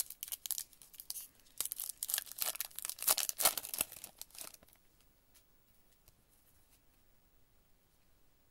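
A foil trading-card pack wrapper torn open and crinkled by hand: a quick run of crackles that stops about four and a half seconds in.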